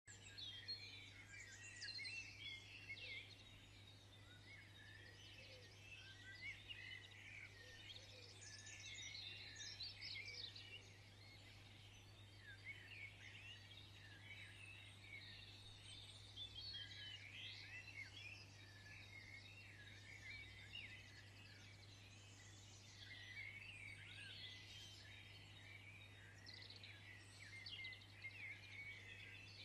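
Faint birdsong, many quick rising and falling chirps that come and go in bouts, over a steady low hum.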